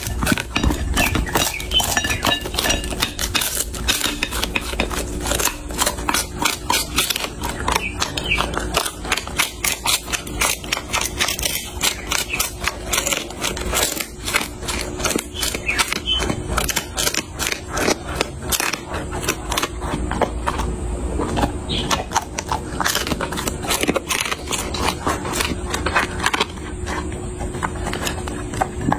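A chocolate Labrador retriever chewing a raw bone close to the microphone: a dense run of rapid, crackling crunches and wet chewing.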